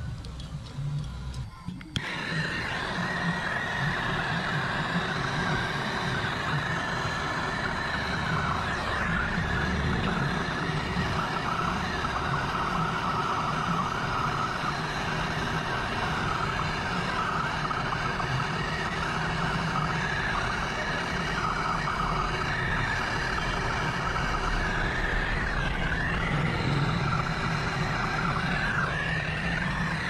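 MAPP gas torch flame, starting about two seconds in and then burning steadily, as copper tubing is brazed to the refrigerator's metal condenser line.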